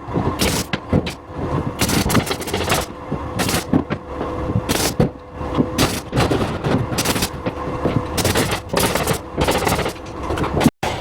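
Pneumatic nail gun (air tacker) firing again and again, sharp shots at an uneven pace, mixed with the knocking and scraping of carpentry work.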